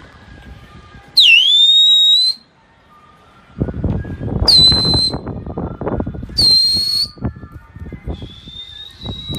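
Four sharp, high-pitched whistles. The first dips and then rises, the next two are short, and the last is held for about two seconds. Rustling, wind-like noise fills the gaps.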